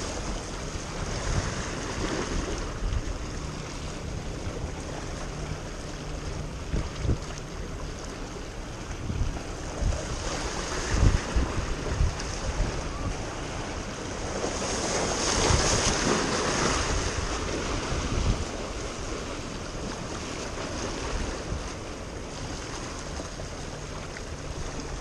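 Small ocean waves washing and lapping against the boulders of a rock jetty, with a louder surge of wash a little past the middle. Wind buffets the microphone in low thumps.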